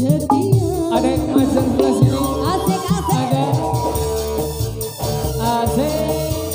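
Dangdut koplo band playing, with a steady drum beat, bass and a gliding melody line.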